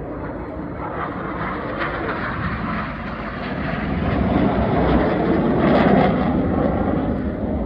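Jet noise of RAF Red Arrows BAE Hawk T1 aircraft passing in display flight: a steady rushing roar that swells to its loudest about five to six seconds in, then eases slightly.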